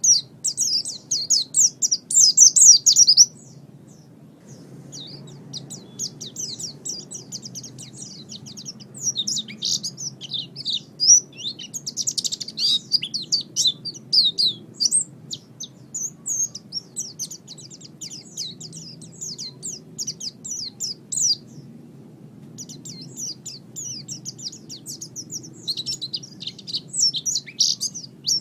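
A white-eye (pleci) singing a fast, high-pitched twittering song in long runs of rapid chirps, broken by a couple of short pauses. A faint low hum runs underneath.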